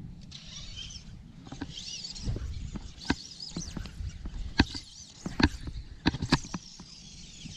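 Shallow water sloshing and lapping around a wading angler on a grass flat, with scattered sharp clicks and light splashes.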